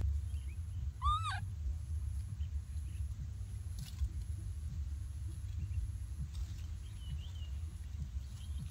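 A single short squealing animal call, rising then falling in pitch, about a second in, over a steady low rumble; a few faint high chirps near the end.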